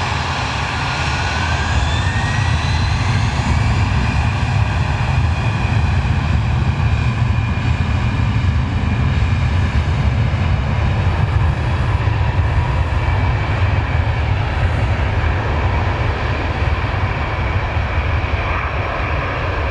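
Airbus A320-214's CFM56 turbofan engines at takeoff power: a steady, loud, deep rumble with a high whine that rises in pitch over the first few seconds and then holds.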